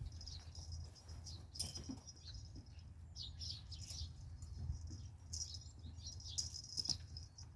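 Small birds chirping on and off over a steady low rumble, with a few light taps and rustles.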